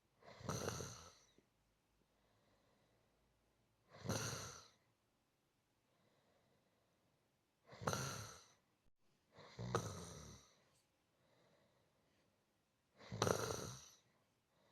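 A person snoring softly: five slow snoring breaths, each about a second long, coming a few seconds apart with quiet in between.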